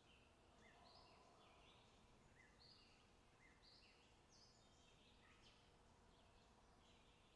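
Faint birdsong: small birds chirping with many short, quick notes, over a low background hiss.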